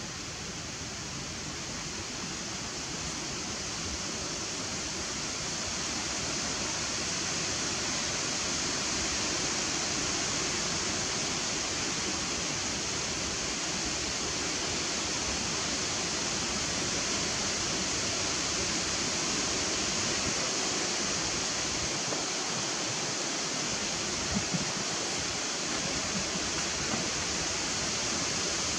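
Steady, even outdoor hiss, strongest in the high range, with no speech, calls or rhythm in it. It grows a little louder over the first several seconds, and a few faint ticks come near the end.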